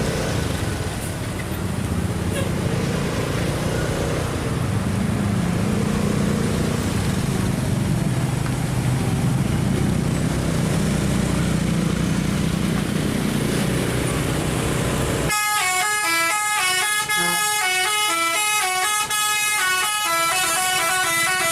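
Road and engine noise of passing traffic for about fifteen seconds, then a Basuri telolet multi-tone horn on an Isuzu Elf minibus cuts in suddenly, sounding several notes at once and stepping quickly through a melody.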